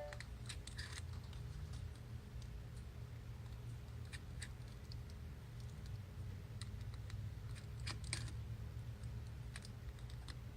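Faint, irregular small clicks and ticks of tools and parts handled while an iPhone 6 is taken apart for a camera replacement, over a steady low hum.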